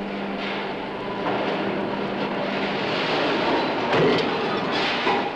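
Sheet-metal press shop machinery noise: a steady mechanical din with a low drone that fades out about three seconds in, and a couple of sharp knocks near the end.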